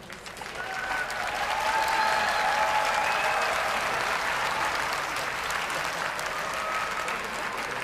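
Arena audience applauding and cheering. It swells about a second in, with a few whoops above the clapping.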